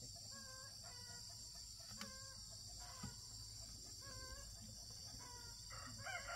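Chickens clucking: faint short calls about every two seconds, over a steady high-pitched drone.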